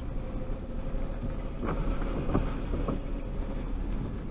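Car cabin noise as the car drives slowly: a steady low engine and road rumble picked up by the dashcam, with three brief squeaks in quick succession about halfway through.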